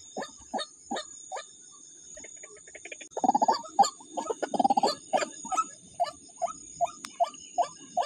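White-breasted waterhen (ruak-ruak) calling: short calls repeated about three times a second, stopping for a moment about a second and a half in. About three seconds in comes a louder, harsher burst of calling for about two seconds, then the steady repeated calls resume.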